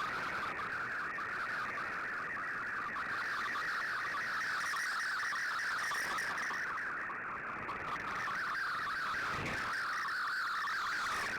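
Shortwave Radiogram digital-mode data signal (MFSK text or SSTV image tones) received on an Icom IC-R8600 shortwave receiver: a steady band of rapidly shifting electronic tones over a bed of receiver hiss.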